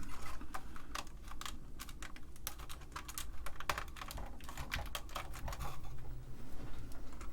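Keys and frame of a TRS-80 Model I keyboard clacking in irregular clicks as the keyboard is handled and lifted free of its board after desoldering.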